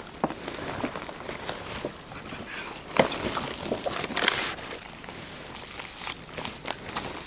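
Plastic bubble wrap and plastic bags crinkling and rustling as gifts are unwrapped by hand, with irregular sharp crackles and clicks. The loudest crackle comes about three seconds in, and a longer rustle follows about a second later.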